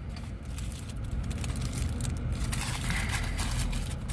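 Steady low rumble of a running car, with scattered light crackling and rustling over it.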